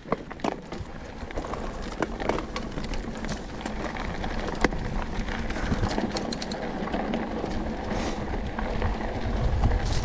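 Mountain bike riding down loose, rocky dirt singletrack: tyres crunching over dirt and stones, with scattered clicks and rattles from the bike and a low wind rumble on the microphone, growing louder as speed builds.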